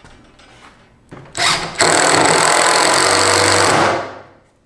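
Cordless impact driver driving a screw through a 2x4 cleat into a pine 2x6 desktop: a short burst about a second in, then about two seconds of steady, loud running that dies away near the end.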